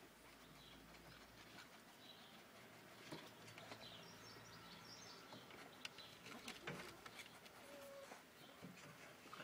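Near silence, with faint scattered clicks of ferrets chewing on a young rabbit and faint high bird chirps in the background.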